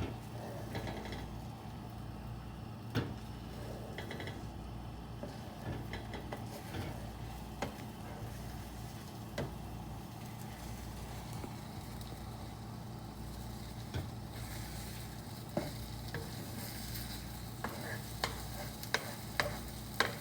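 Scrambled eggs sizzling in a non-stick pan while a spoon stirs and scrapes them, with scattered light clicks of the spoon against the pan that come more often near the end. A steady low hum runs underneath.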